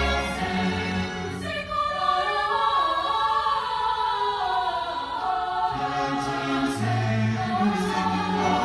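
School choir singing with a string orchestra accompanying. The deep low notes under the voices fall away for a few seconds in the middle and come back toward the end.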